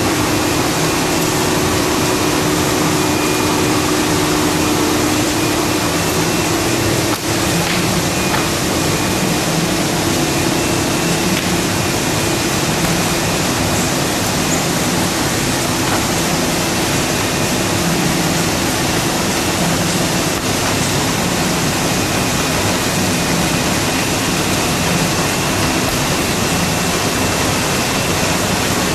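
Wohlenberg 137 paper cutting line running: steady machine noise with a constant low hum, with one brief dip about seven seconds in.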